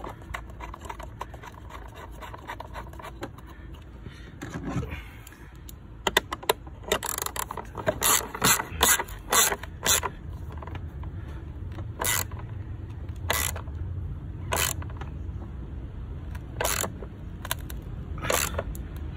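Socket ratchet tightening the 13mm nut on a car battery's hold-down bracket: some faint scraping and fumbling first, then a quick run of sharp ratchet clicks, then single clicks every second or so.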